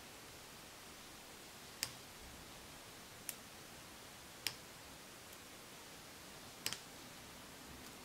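Light taps and clicks of small nail-work tools, a slim brush handled over a glass work plate, heard as a few sharp separate clicks one to two seconds apart over faint room hiss, one of them doubled.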